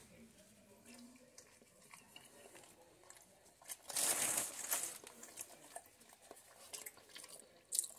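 Paper sandwich wrapper crinkling for about a second, about four seconds in, as a croissant sandwich is lifted off it, with a few fainter rustles and small taps after.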